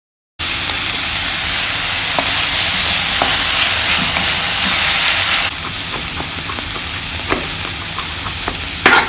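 Food sizzling in oil in a frying pan as it is stirred, with light scrapes and clicks of the utensil against the pan. The sizzle starts abruptly after a brief silence and becomes quieter about five and a half seconds in.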